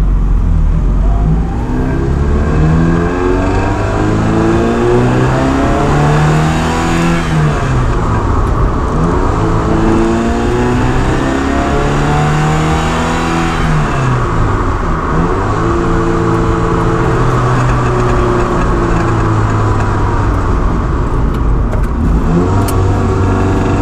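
1985 Ferrari 308 GTSi Quattrovalvole's flat-plane-crank V8 accelerating through the gears, its pitch climbing and then dropping back at each upshift. About two-thirds of the way through it lifts off, settles into a steady cruise, and climbs again near the end.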